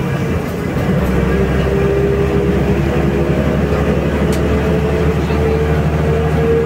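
City bus driving: a steady low engine and drivetrain drone that grows a little louder about a second in, with a thin whine that rises slowly in pitch as the bus picks up speed.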